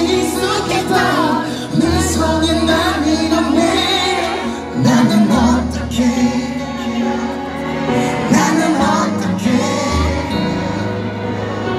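Live pop song: a singer's voice over a backing track with held bass notes that change every couple of seconds, heard from among the audience in a large hall.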